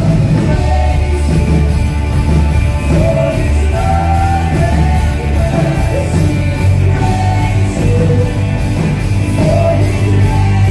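A live worship band playing a rock-style song in a large hall: a lead vocal with backing voices over drum kit, electric guitars and bass guitar.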